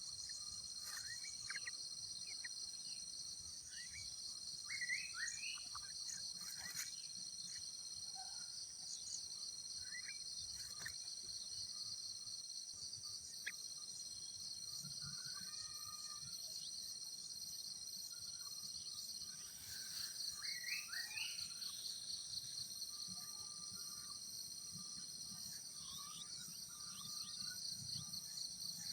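Insects droning steadily at a high pitch, pulsing more strongly about two-thirds of the way through, with scattered short bird chirps over them.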